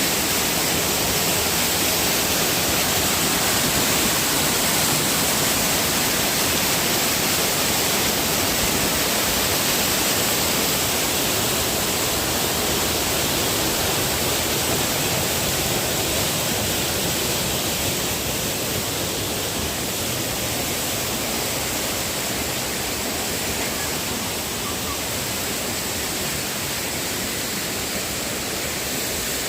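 Steady rush of a waterfall and cascading stream, a constant roar of water that eases a little past the middle.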